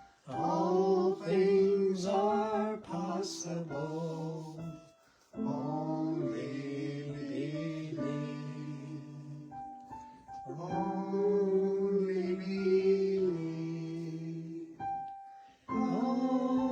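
A song sung with guitar accompaniment, its phrases of held, gliding notes separated by brief pauses.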